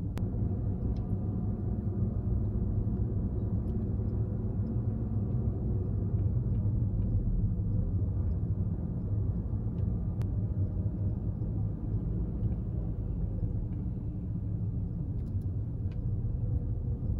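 Steady low rumble of a car driving slowly, heard from inside the cabin: engine and road noise.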